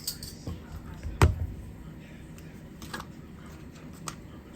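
Kitchen handling noises: a dull thump of a container or utensil set down on the counter about a second in, then a few light clicks and taps.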